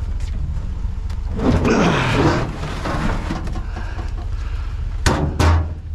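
A scraping, dragging noise about a second and a half in, and two sharp knocks near the end, over a steady low rumble.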